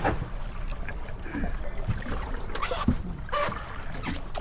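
Steady low wind and water rumble aboard a small fishing boat at sea, broken by a few short knocks and swishes.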